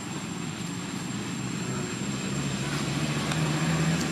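Low engine drone, growing louder over the last couple of seconds.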